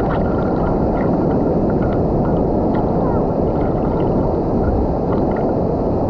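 Waterfall rushing steadily, an even wash of falling-water noise without a break.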